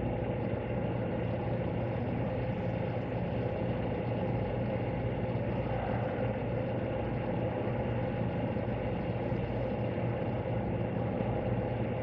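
Steady machine hum: a low drone with a few held, unchanging tones over it.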